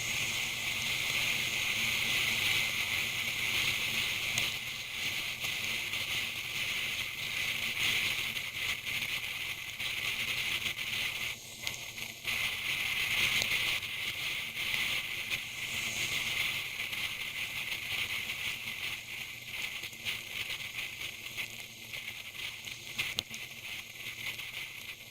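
Steady rushing hiss of wind and rain on a motorcycle rider's camera at riding speed, broken by many small crackling ticks. The level dips briefly about eleven seconds in.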